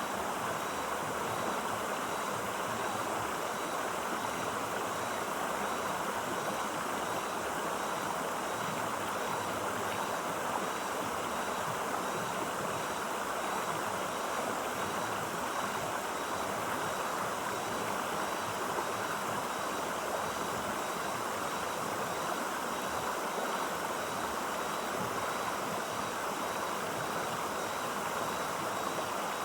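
Clear running water of a stream, a steady even rush with no breaks.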